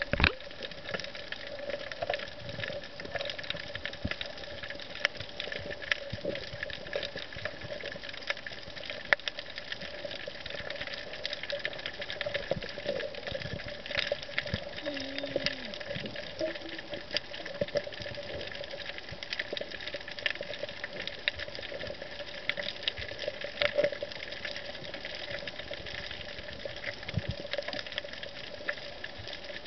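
Underwater reef ambience picked up by the camera: a constant crackle of short, irregular clicks over a steady hum, with a brief wavering tone about halfway through.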